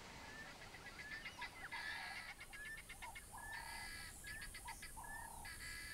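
Birds calling: three short, harsh calls about a second and a half apart, with quick single chirps between them.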